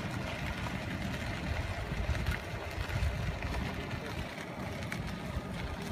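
Steady low rumble of riding along in a golf cart, with wind buffeting the microphone.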